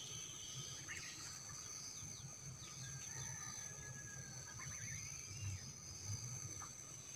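Faint outdoor ambience: a steady high-pitched insect drone with scattered short bird chirps, over a low rumble.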